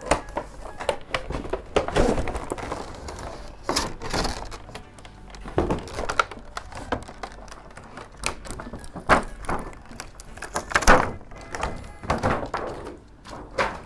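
A cardboard toy box being opened and the stiff clear plastic tray holding a toy sword handled: irregular knocks, scrapes and rustles of cardboard and plastic.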